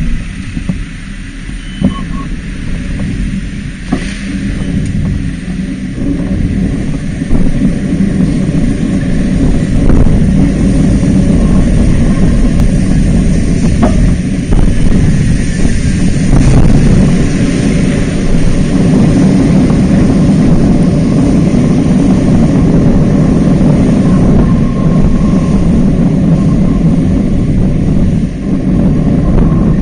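Street traffic heard from a moving bicycle: engines of a city bus, cars and a lorry running close alongside, a steady loud rumble that gets louder about seven seconds in.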